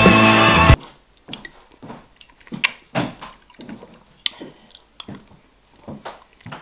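Music cuts off sharply under a second in. After that, a metal spoon clinks and scrapes irregularly in a stainless steel bowl of sugar-free jelly, with soft wet sounds of the jelly being spooned up and eaten.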